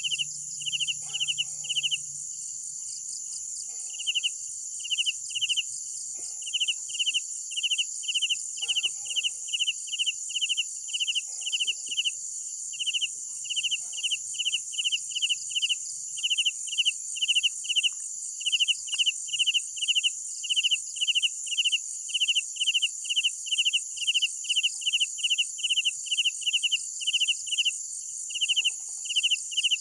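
Night crickets chirping, a pulsed chirp repeating about twice a second over a steady, very high-pitched insect trill.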